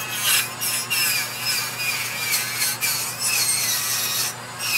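Dremel rotary tool spinning stacked nylon abrasive spiral wheels against a wooden chess piece: a scratchy, uneven rubbing as the wheels scour and deburr the wood, over the tool's steady whine.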